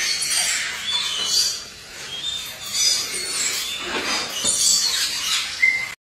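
Parrots squawking: repeated harsh, screechy calls, several of them overlapping.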